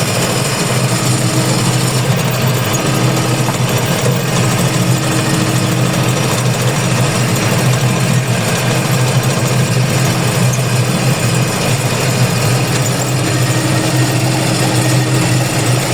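Engine and machinery of a milled-peat harvesting rig running steadily under load, a continuous low drone with a constant noisy wash above it.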